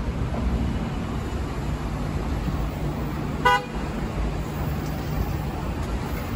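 Steady road-traffic rumble from a busy multi-lane city avenue, with one short car-horn toot about halfway through.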